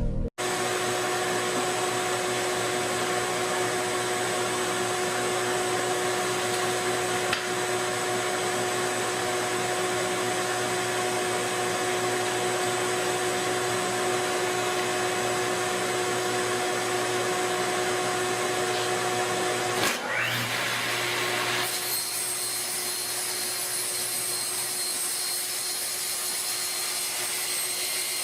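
Electric power-tool motor running steadily with a constant whine. About two-thirds of the way through, the sound shifts abruptly and becomes brighter and hissier.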